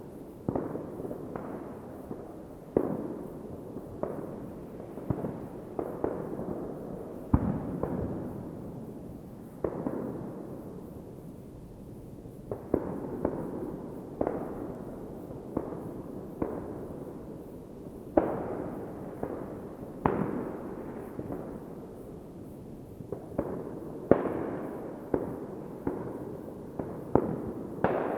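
New Year's Eve fireworks going off in the distance: irregular sharp bangs, often one or two a second, each trailing off in a rolling rumble and echo, with a continuous low rumble of further bursts beneath.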